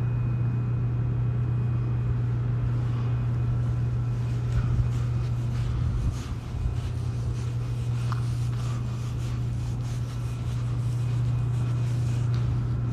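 A steady low hum with a continuous rumble under it, inside an empty road tunnel.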